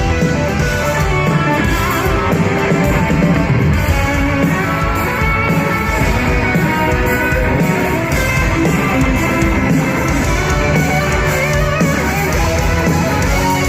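A rock band playing live and loud, led by electric guitars over bass and drums, in an instrumental stretch without singing.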